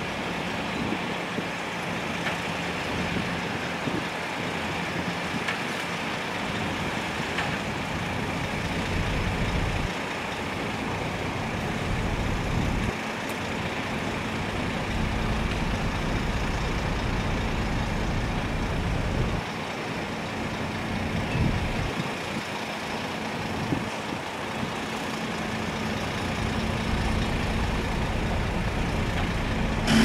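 Diesel tipper truck's engine running as its hydraulic hoist lifts the loaded bed to dump soil, a steady low rumble that swells and eases by turns, with a steady hum joining about halfway through.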